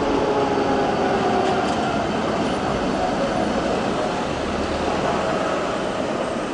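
Older high-floor Gothenburg trams running past on street track: a steady rumble of wheels on rail, with a faint motor whine easing down in pitch.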